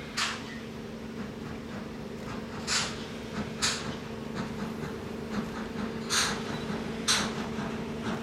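Steam locomotives working slowly: sharp hissing exhaust beats come in uneven pairs, about a second apart and then a pause of about two and a half seconds, over a steady low hum.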